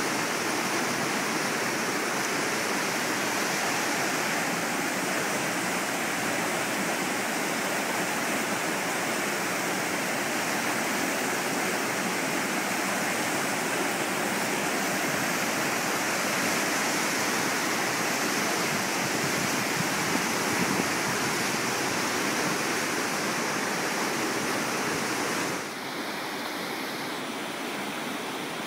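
Rappahannock River in flood, rushing through rapids: a steady rush of churning whitewater, a little quieter near the end.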